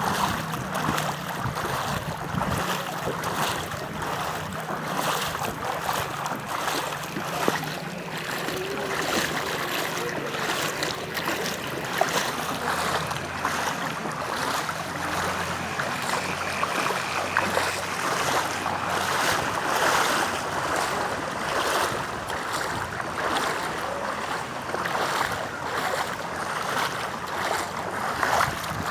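Steady rain falling on the street, a dense, even hiss with fine pattering throughout.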